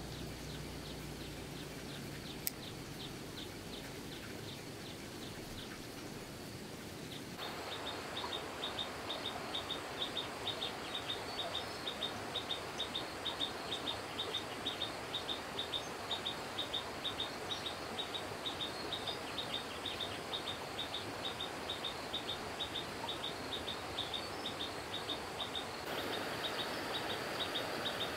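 Rural outdoor ambience: a high chirp repeated evenly, about three times a second, over a steady hiss. The background changes suddenly about seven seconds in and again near the end.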